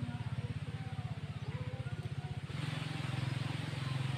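A low motor drone with a rapid, even pulse, under faint music; about two and a half seconds in, the drone smooths out and a hiss comes up with it.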